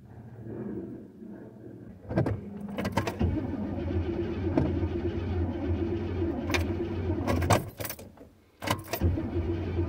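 A 1986 Chevrolet Caprice Classic being cranked over by its starter, in a cold-start attempt after a year of sitting. A few clicks about two seconds in, then a steady low cranking drone. It stops briefly near the end and starts again about half a second later, heard from inside the car's cabin.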